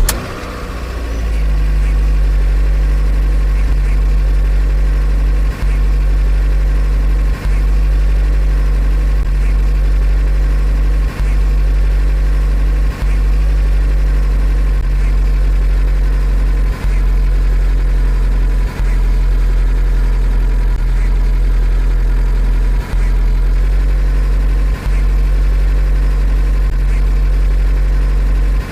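Car engine just after a cold start, building over the first couple of seconds to a steady low idle. Brief drops in level come every few seconds.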